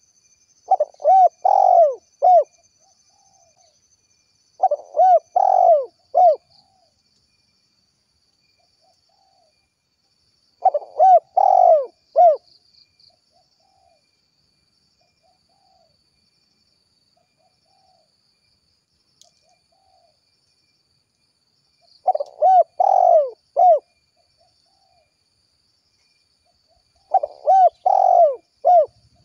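Spotted dove (tekukur) cooing in the 'kuk 1' call type: five phrases of three or four low hooting notes each, repeated every few seconds.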